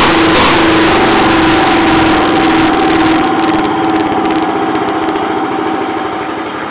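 An antique Jacobsen two-stroke engine from the 1920s or early 1930s running steadily on the bench. About halfway through it begins growing gradually quieter.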